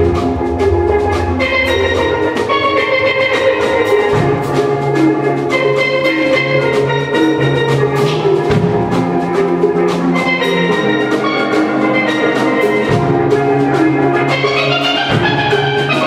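Steel drum band playing live: several steel pans strike a quick, rhythmic melody over low notes that shift every few seconds.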